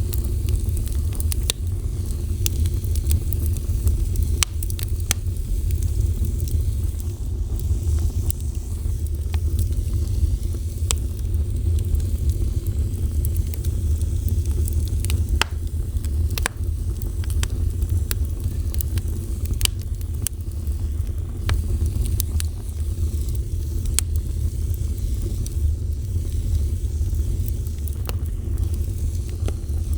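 Fire burning with a steady low rumble and sharp, irregular crackles and pops scattered throughout.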